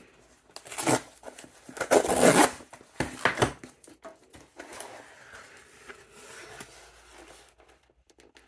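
A subscription box and its packaging being opened by hand: a few loud tearing strokes in the first few seconds, then softer rustling and handling of paper and cardboard that fades away.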